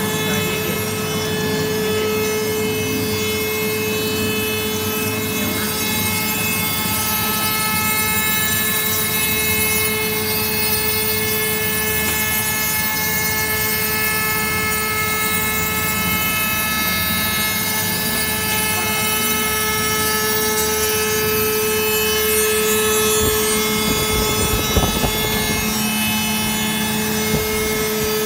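CNC machine's spindle motor running with a steady whine and several higher overtones over a mechanical hum. A few low knocks come about three-quarters of the way through.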